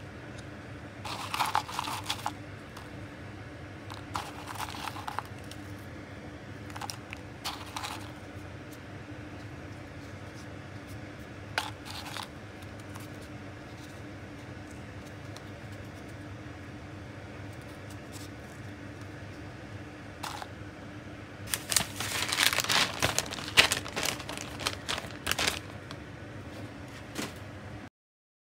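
Brittle dried shiitake slices rustling and clicking against a small bowl as they are handled, in a few short bursts and then a longer, busier stretch near the end. A faint steady hum lies underneath.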